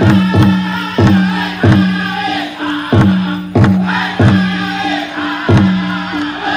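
Pow wow drum group singing a chicken dance song: a group of high-pitched voices chanting over a big drum. The drum is struck in loud, heavy beats at an uneven spacing of roughly half a second to a second, and each beat rings on.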